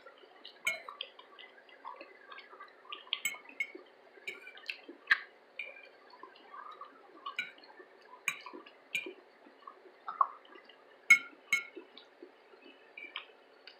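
Close-miked mukbang eating: chewing with irregular small mouth clicks and smacks, a couple every second or so.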